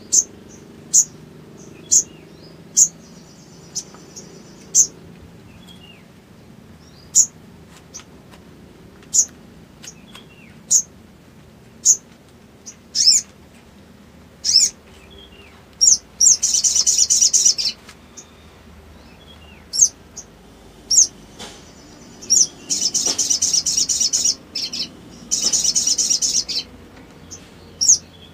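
Caged sogok ontong, a small long-billed sunbird-type songbird, calling with sharp, high single chirps about once a second. Three times in the second half these break into rapid, high chattering trills of a second or so each: the 'ngriwik' chatter that keepers play to lure other birds into song.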